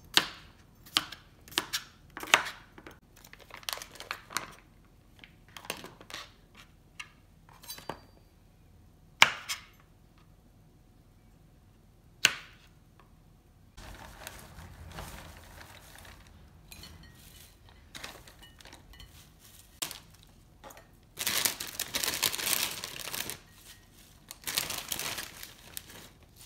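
Chef's knife chopping cucumbers on a plastic cutting mat over a wooden board: irregular sharp knocks for the first dozen seconds or so. Later, quiet rustling of salad leaves, then a plastic salad-greens package crinkling loudly as the greens are shaken out into bowls near the end.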